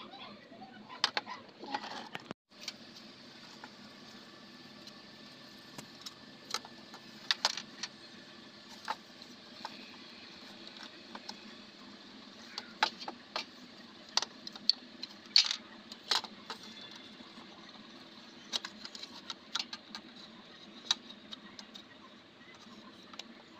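Scattered light clicks and knocks of a homemade wooden slingshot rifle and its plastic-pipe barrel being handled and fitted together against a tabletop, over a faint steady hum.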